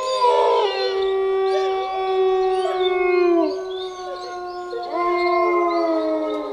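A pack of wolves howling in chorus: several long, overlapping howls, held steady and sliding down in pitch at their ends, with a fresh howl rising about five seconds in.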